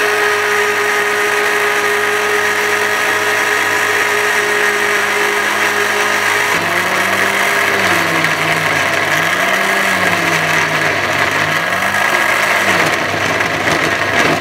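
Electric blender motor running at full speed, pureeing chopped raw fruit and vegetables into juice. The motor runs steadily at first, then from about halfway its pitch starts to rise and fall repeatedly as the contents churn.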